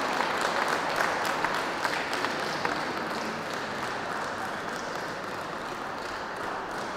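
Audience applauding, the clapping slowly dying away.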